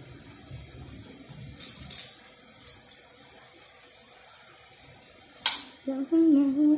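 Karioka (glutinous rice balls) frying in a pan of oil, a faint steady sizzle, with a few short rustles and one sharp click about five and a half seconds in. Near the end a woman's voice hums loudly.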